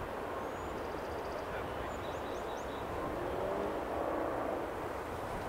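Union Pacific train rolling slowly at about 5 mph, a steady low noise with no sudden events, while small birds chirp and trill briefly above it.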